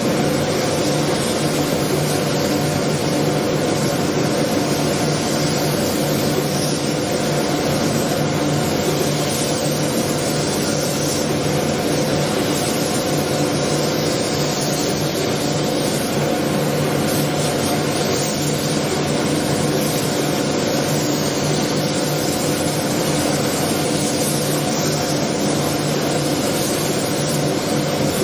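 Steady drone of a spray-painting workshop's dust-extraction ventilation: a constant machine hum with an even hiss over it.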